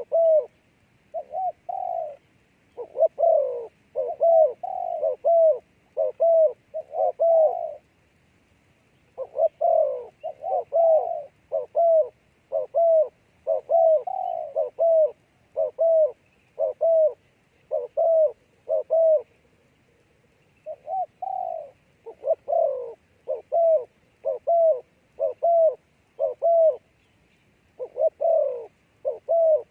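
A dove cooing over and over, in phrases of rapid coos at about two a second, with short pauses between phrases.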